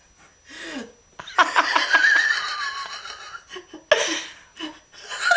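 A person laughing: a long run of laughter starting about a second in, then another burst of laughter about four seconds in.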